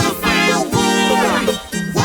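Children's song music with a sung melody, altered by audio effects so that the words are not recognisable.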